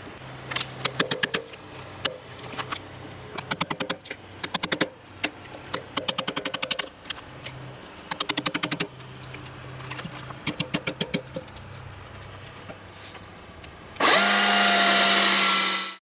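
A hammer strikes a steel chisel in quick bursts of several blows, cutting down into a log to get at a chain grown into the wood. Near the end a loud power tool runs steadily for about two seconds, then stops abruptly.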